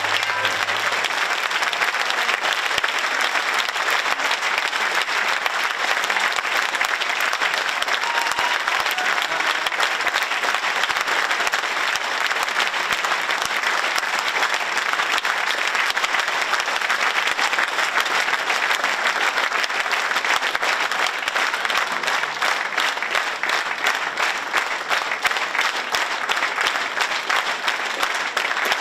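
Audience applauding, a dense steady clapping that thins over the last several seconds into more separate claps.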